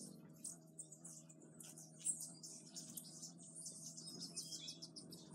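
Hummingbirds giving rapid, high-pitched chips and twitters, many short notes overlapping, over a faint steady low hum.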